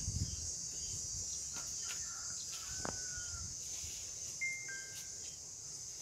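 Steady high-pitched insect chorus, with a few short bird whistles around the middle and again near the end.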